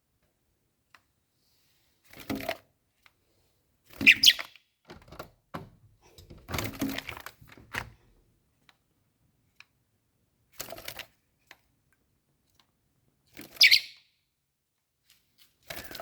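A young bird calling: short, separate calls a few seconds apart, the loudest about 4 s in and near the end, mixed with soft knocks and rustling.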